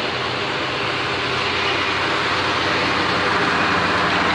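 1977 GMC pickup truck's engine idling steadily, a constant low hum with a hiss over it, left running to warm up after a cold start.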